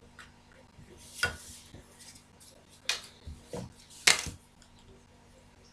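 Drafting tools, a plastic set square and a wooden ruler, being shifted and set down on the drawing sheet: four sharp knocks spread over about three seconds, the loudest about four seconds in.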